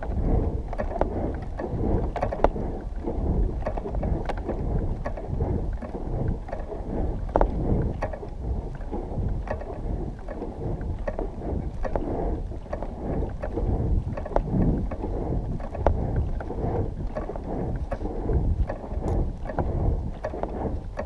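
Wind buffeting a body-mounted microphone: a low, gusty rumble with frequent small irregular knocks.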